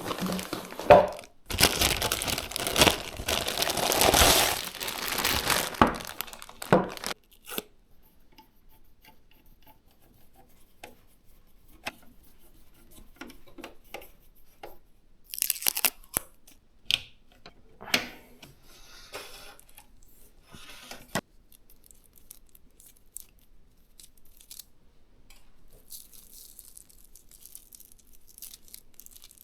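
Plastic packaging of a PC component crinkling and tearing, loud and dense for about the first seven seconds. After that, quieter scattered clicks and short rustles of parts being handled.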